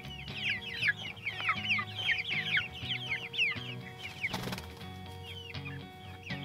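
A flock of young Cornish Cross broiler chickens peeping, many short downward-sliding peeps a second, thinning out after about three and a half seconds. A brief rustle comes about four and a half seconds in, over quiet background music.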